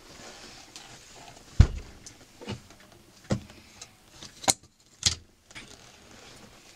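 Knocks and clicks of an accordion being handled on a table while its grille panel is fitted back on: one heavy thump about a second and a half in, a few lighter knocks, then two sharp clicks about half a second apart.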